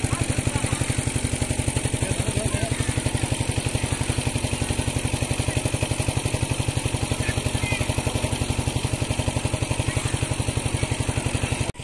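An engine running steadily at an even speed, with a fast, regular chugging pulse.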